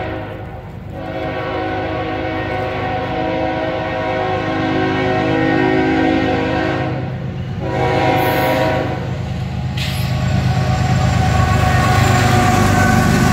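Diesel locomotive horn of an approaching Norfolk Southern GE ES44AC freight train sounding in long blasts, with short breaks about a second in and about seven seconds in. The rumble of the diesel engines and the train builds to its loudest as the lead locomotive passes near the end.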